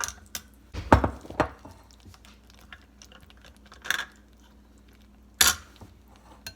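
A few knocks and clinks of a glass bowl and kitchen utensils being handled: a heavy double knock about a second in, then sharper single clinks around four and five and a half seconds.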